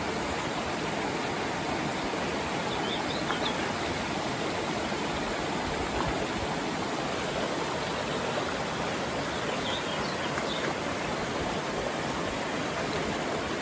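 Steady rush of river water, an even, unbroken hiss of flowing water.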